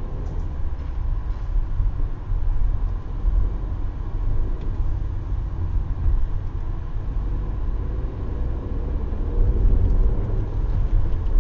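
Car interior noise picked up by a windscreen-mounted dashcam's microphone: a steady low rumble of engine and tyres as the car pulls away and drives slowly, growing slightly louder as it gathers speed.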